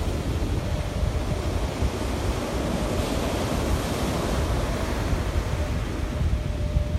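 Ocean surf breaking and washing up a sandy beach, a steady rushing wash, with wind buffeting the microphone as a low rumble underneath.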